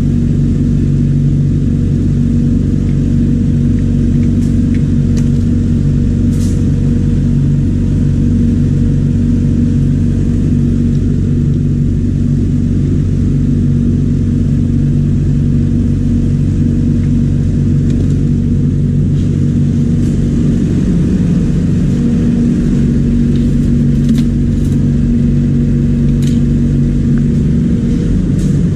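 Refrigeration vacuum pump running steadily with a loud, even low hum, evacuating the refrigerator's copper line through its hose. A few faint clicks sound over it, about six seconds in and again in the last few seconds.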